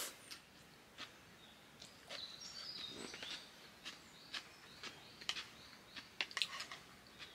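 Faint open-air ambience with birds chirping now and then, and scattered light clicks and taps throughout.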